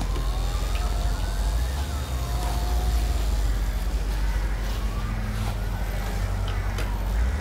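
OSET 20.0 Eco electric trials bike's motor whining, its pitch rising and falling twice as the throttle is opened and eased off, over a steady low rumble.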